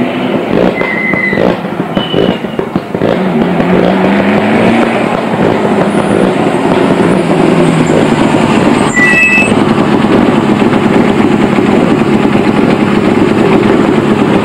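Rally car engines running at close range. In the first few seconds the engine note rises and falls with light revving, then settles into a steady, rough running.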